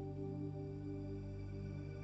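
Soft ambient background music: held, steady drone tones with no beat.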